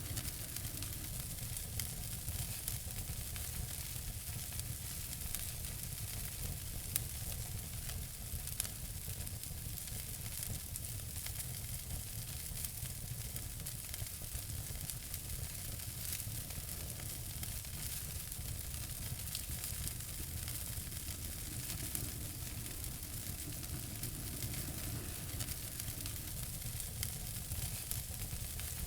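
Wood fire burning in a fireplace, a steady hiss with frequent small crackles and a couple of louder pops, about a third of the way through.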